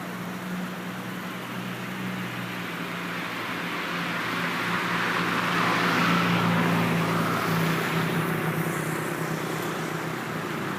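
Road vehicle sound: a steady low engine hum, with a rush of noise that builds to a peak about six seconds in and then fades, like a vehicle passing.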